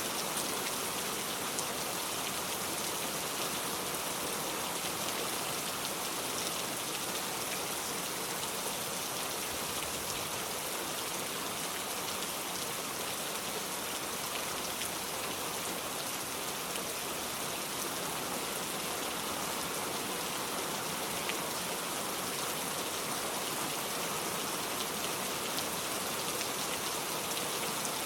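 Heavy rain falling steadily, an even hiss with faint scattered drop ticks on surfaces.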